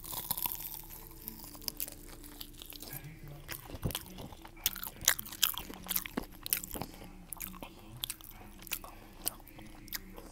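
A person biting and chewing crunchy food close to the microphone, with many irregular sharp crunches and mouth clicks.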